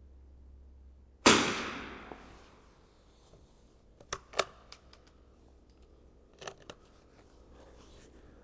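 A single .22 LR rifle shot about a second in, a sharp crack with a reverberant tail that fades over about a second. It is followed by a few short sharp clicks, two close together near the middle and two more later.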